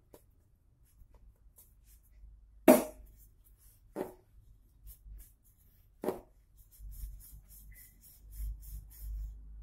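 Wooden rolling pin working dough on a wooden board: three sharp knocks, the loudest about three seconds in, then a low rumble as the pin rolls the dough out flat.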